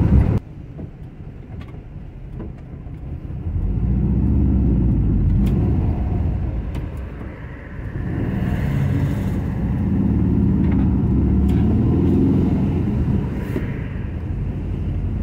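Volkswagen Kombi engine and road rumble heard from inside the van while driving. It grows louder twice, about four seconds in and again about eight seconds in, and eases off near the end.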